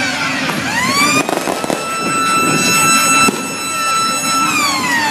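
An emergency-vehicle siren wailing: a held note that falls, winds back up about a second in, holds for a few seconds and falls again near the end. A quick run of sharp cracks comes just after it winds up.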